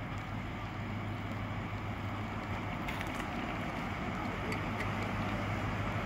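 A train running at the station: a steady low hum under an even noise that slowly grows louder.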